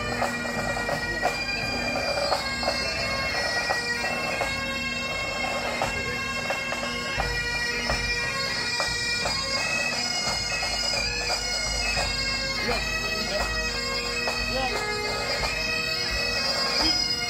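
Highland pipe band playing on the march: bagpipe melody over steady drones, with regular drum strokes underneath.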